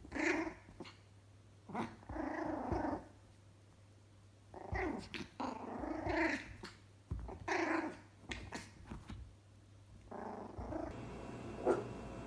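A puppy growling in play, in about six short bursts, some half a second and some nearly a second long, over the first eight seconds. Near the end the growls stop and a steady low background remains, with a few faint short sounds.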